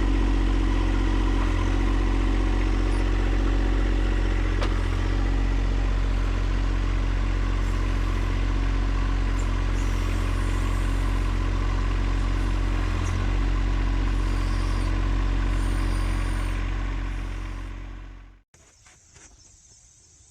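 An engine running steadily at a constant speed, then fading out and cutting off sharply near the end.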